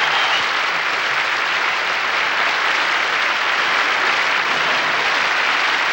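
Large audience applauding steadily, a dense, even wash of clapping.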